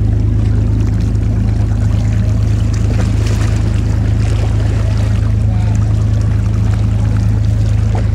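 A boat's engine drones steadily as a low, even hum, with a wash of water noise over it.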